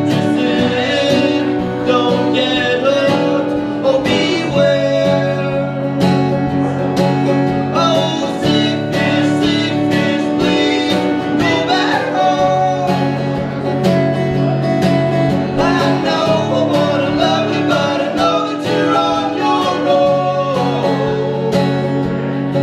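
Live acoustic country/bluegrass-style music: acoustic guitar and plucked strings playing steadily, with singing.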